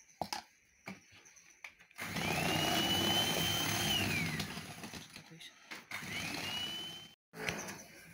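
Electric hand mixer beating cake batter in a plastic bowl. About two seconds in, its motor whine rises as it starts, runs for a couple of seconds, then winds down. It starts again briefly near the end and cuts off suddenly. A few light taps come before it.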